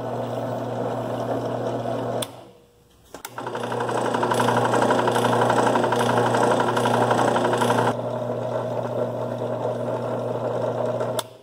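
Central Machinery 8-inch 5-speed bench drill press running with its motor hum, briefly cut off after about two seconds and then restarted. At first it runs with a loud rattling, ringing clatter from loose belt pulleys and a loose spindle adjustment, as it comes from the factory. About eight seconds in it is heard after adjustment, running with a steadier, quieter hum.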